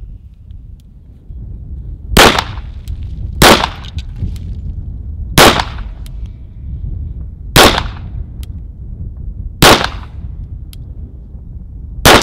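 Pistol fired six times at an uneven pace, one shot every one and a half to two seconds, each shot followed by a brief echo.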